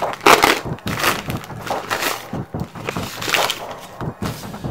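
Utility knife slicing into a plastic padded mailer, and the plastic crinkling in several short bursts as the envelope is opened and handled.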